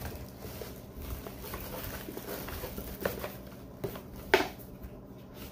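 Rustling and handling of a small cardboard box and its packaging as it is opened, with a few light knocks and clicks, the sharpest a little over four seconds in. A steady low hum runs underneath.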